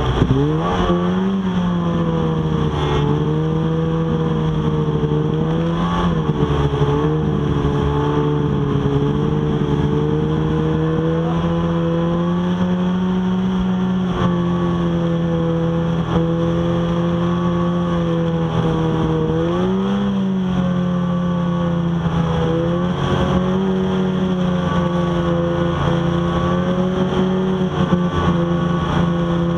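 Snowmobile engine running hard at a steady pitch, heard from on the sled. A few times the pitch dips briefly and then picks back up.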